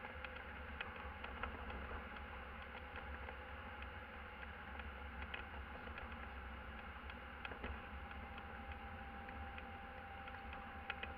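Van cab noise while driving: a steady low engine and road rumble with a buzzing drone, and frequent light clicks and rattles.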